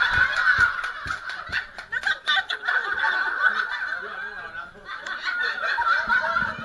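People laughing together, with bits of speech mixed in.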